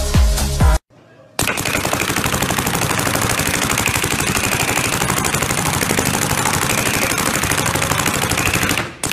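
Paintball marker firing rapidly in a long, even stream of shots. Before it, music plays for under a second and cuts off.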